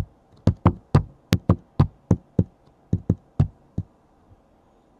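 A quick, uneven run of sharp knocks or taps by hand on a hard surface, about fifteen in under four seconds, then it stops.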